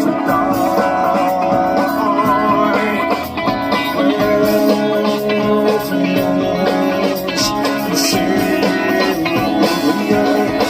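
Band music with guitar to the fore and no clear singing: sustained guitar notes over the band, with a brief dip in level about three seconds in.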